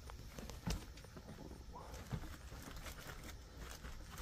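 Footsteps crunching and crackling over a floor strewn with broken drywall, paper and grit, with two heavier steps about a second and two seconds in.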